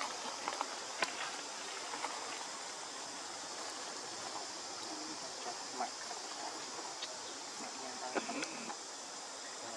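Outdoor ambience: a steady hiss of insects, with scattered small clicks and rustles and a brief faint call about eight seconds in.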